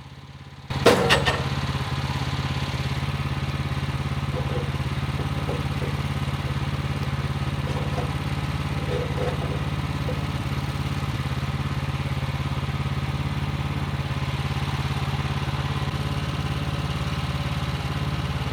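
Engine of a Woodland Mills portable bandsaw sawmill running steadily. It comes in abruptly with a brief clatter about a second in.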